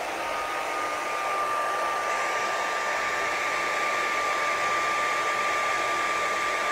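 Hair dryer with a diffuser attachment running steadily: a rush of air with a steady high whine from its motor.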